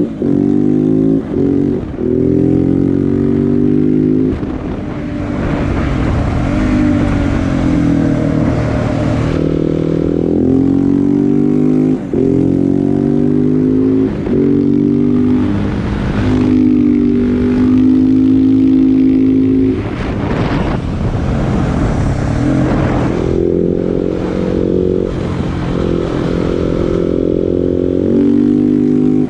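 KTM 690 SMC R's single-cylinder engine through a LeoVince aftermarket exhaust, ridden on the road: it revs up and down through the gears, with brief dips in the sound at the shifts. A rush of wind comes and goes in the middle.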